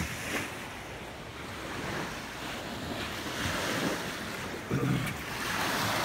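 Waves washing on a beach under steady wind, with wind buffeting the microphone and a low thump near the end.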